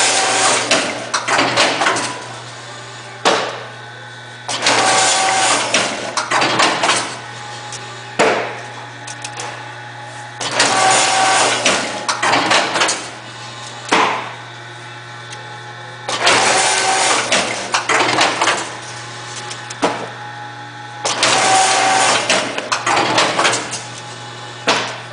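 Automatic twin-loop wire binding machine running through repeated binding cycles, about one every five and a half seconds. Each cycle is a loud mechanical clatter of a couple of seconds, with a sharp clack between cycles, over a steady motor hum.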